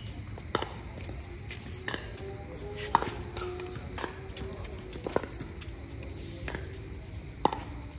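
Pickleball rally: paddles striking a plastic pickleball, sharp pops about once a second, seven in all, the loudest about three seconds in. Faint music plays underneath.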